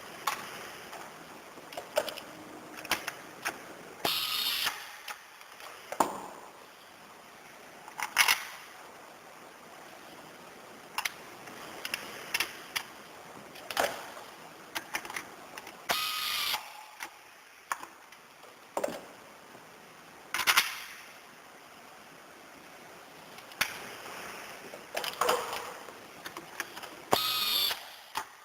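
Irregular sharp clicks and knocks of small hard parts being handled. A few longer scraping rattles, some with a faint metallic ring, come about four seconds in, near the middle and near the end.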